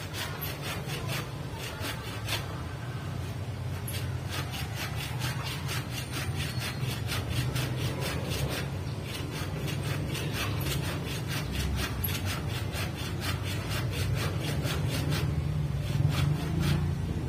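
Hand saw cutting with steady back-and-forth strokes, about two to three a second, over a steady low hum that grows louder near the end.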